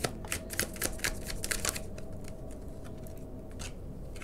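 A tarot deck being shuffled by hand: a quick run of sharp card snaps in the first two seconds, then a few more as a card is pulled from the deck near the end.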